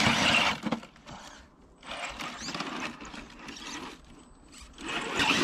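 Scale RC rock crawler's electric motor and geared drivetrain whirring in short stop-start bursts as it climbs rock, loudest in the first half-second.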